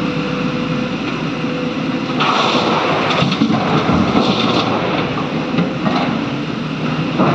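Diesel engines of an excavator and a tipper truck running steadily; about two seconds in, a rough crashing rumble of a bucket load of earth and rock pouring into the truck's steel body, with smaller spills later.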